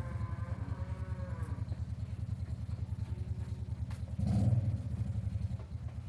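A small engine running with an even, rapid pulse, swelling louder for about half a second around four seconds in.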